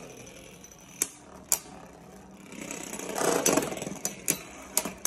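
Two Beyblade spinning tops whirring in a plastic stadium, grinding against each other in a loud stretch near the middle, with four sharp clacks as they collide.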